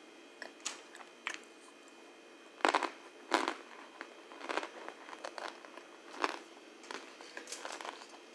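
A person biting and chewing a pressed brick of Clabber Girl cornstarch: a string of sharp, dry crunches, the two loudest about two and a half and three and a half seconds in.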